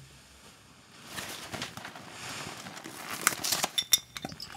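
Clothing rustling and handling noises, with a few sharp clicks, as someone crouches at an oak wine cask and works its tap to draw wine. It starts after about a second.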